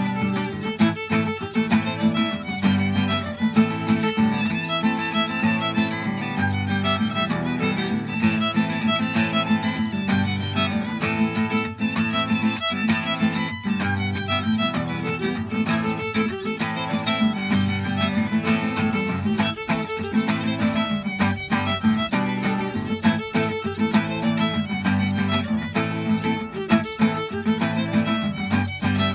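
Fiddle and acoustic guitar playing an Irish jig: the fiddle carries a quick running melody over strummed guitar chords in a steady lilting rhythm.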